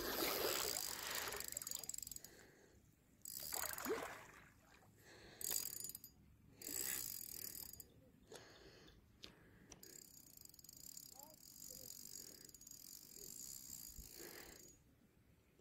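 Spinning reel being cranked in several short spurts, then wound more steadily near the end, as a small hooked carp is reeled in on a light rod.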